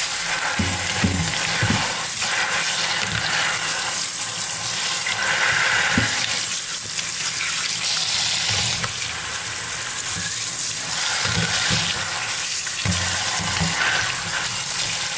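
Kitchen tap running steadily onto chunks of pickled meat in a plastic colander, with short wet handling sounds now and then as a hand turns the meat under the stream.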